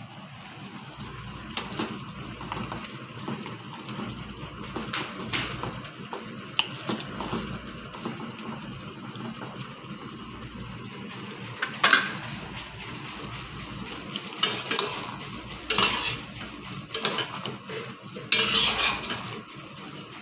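A metal spoon clinking and scraping against stainless steel cookware while stirring, over a steady low hiss. There are light clicks at first, then several louder scrapes in the second half, the longest near the end.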